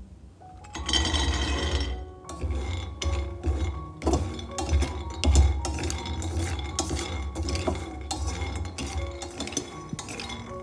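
Whole hazelnuts poured into a stainless steel pan, a dense rattle about a second in, then the nuts clicking and clattering against the steel as they are stirred with a wooden spatula while dry-roasting.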